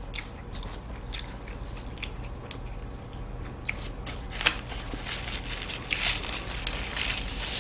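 Flaky puff pastry of a butterfly pie crackling and crunching as it is torn apart by hand. It is sparse and faint at first, then grows denser and louder from about halfway.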